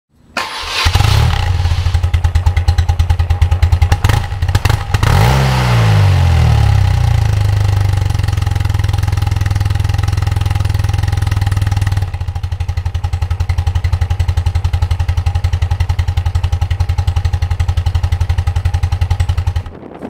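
Air-cooled motorcycle engine starting up about half a second in, blipped once so the revs fall back around five seconds in, then idling with an even, lumpy pulse until it stops just before the end.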